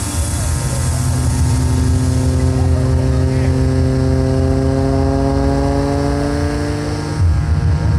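Aerobatic propeller plane's piston engine running. Its pitch climbs slowly over several seconds, and the sound changes about seven seconds in.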